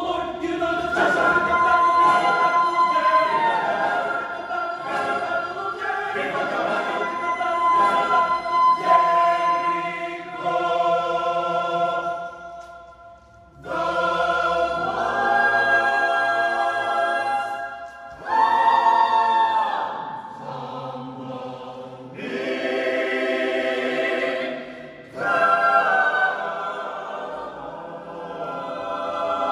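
Mixed-voice choir of men and women singing a cappella: sustained chords in phrases, with a short break between phrases about halfway through.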